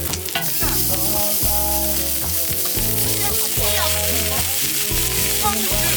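Food sizzling in a hot pan, a steady frying hiss that starts just after the beginning.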